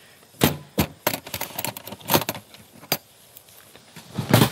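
Blackdeer aluminium storage box being handled and lifted off its stack: a run of sharp metal clicks and clanks, with a louder clatter of knocks near the end.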